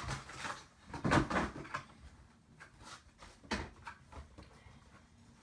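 Cardboard and plastic packaging of a Pokémon card collection box being handled and opened: scattered knocks, scrapes and rustling. The loudest comes about a second in and a sharp knock at around three and a half seconds.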